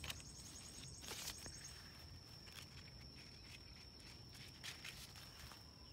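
Faint, steady, high-pitched insect trill, with a few brief rustles about a second in.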